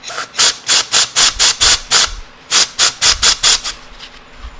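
Compressed-air blow gun firing rapid short blasts into the oil passages of a motorcycle engine case, a hissing pulse about four times a second. There are two runs of blasts with a brief pause between them, and it stops shortly before the end.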